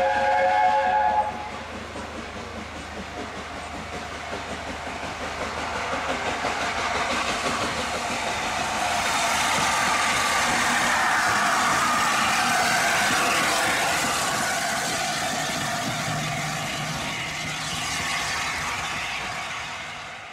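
A steam locomotive's chime whistle sounds one short blast of a few notes together, then the train runs past, its noise building to a peak about halfway through and fading away. The engine is the LNER A4 Pacific 60007 Sir Nigel Gresley.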